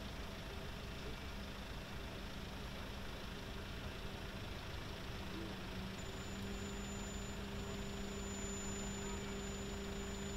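Car engines idling in a queue at a raised bascule bridge, a steady low hum. A thin high whine joins about halfway through.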